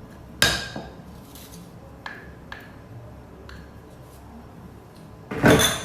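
Kitchen dishes and utensils being handled: a sharp clink about half a second in, a few light taps, and a louder clatter near the end.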